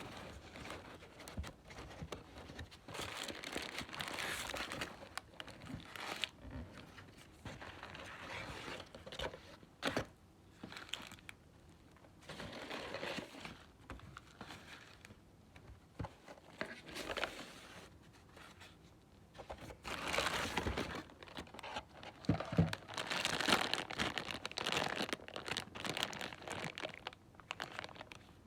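Packaging crinkling and tearing in irregular bursts as a Happy Meal's wrapped toy and card pack are unwrapped by hand, with a few sharp clicks and a busier, louder stretch of rustling near the end.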